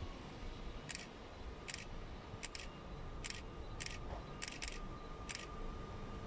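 Electric multiple unit approaching the station, heard as a faint steady whine, with about nine short, sharp hissing clicks at irregular intervals, some in close pairs.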